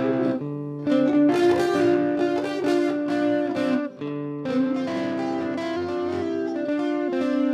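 Background music led by plucked guitar, with notes and chords changing every half second or so and a brief drop in level about four seconds in.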